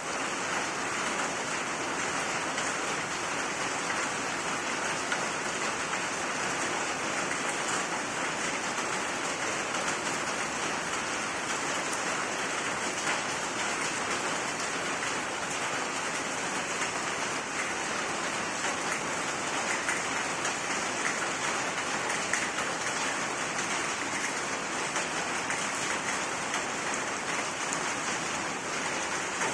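Steady rain falling and splashing on surfaces, with scattered individual drop ticks.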